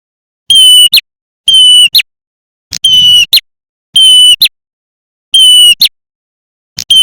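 Looped lure recording of prenjak (red-headed, grey-bodied small warbler) calls: a short, shrill, buzzy note ending in a sharp chip, repeated six times at even spacing of about a second, loud.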